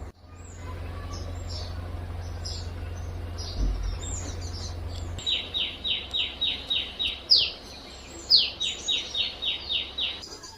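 Small birds chirping: short downward-sliding chirps, then from about halfway a fast run of sharp descending notes, about four a second, in two series. A low steady hum lies under the first half and stops about halfway through.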